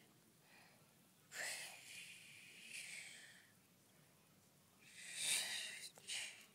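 A person's breathy, unvoiced mouth sounds in four short bursts, the loudest about five seconds in.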